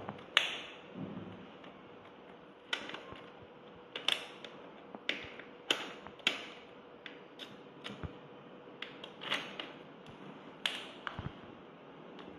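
Irregular sharp clicks and taps, well over a dozen, from handling a folding e-bike battery pack, with a key worked in the pack's lock.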